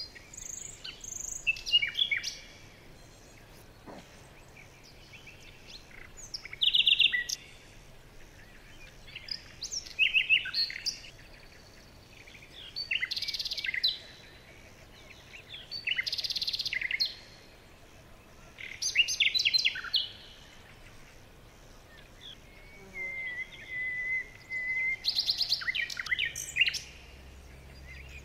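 A songbird singing short phrases of quick chirps and trills, one every three seconds or so, with one longer steady whistled note about four-fifths of the way through.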